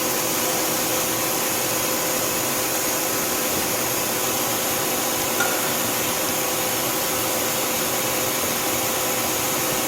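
2011 Tsugami S206 CNC Swiss lathe running with its back spindle just started and turning at speed. It makes a steady whirring hiss with a faint even hum that holds constant.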